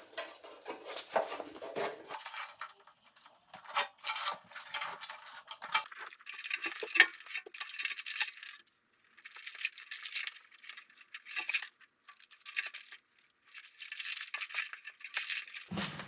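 Foil-backed rubberized sound-deadening mat being handled inside a car door, crinkling and rustling as its paper backing is peeled and the sheet is pressed into place, in irregular clusters with a few short pauses.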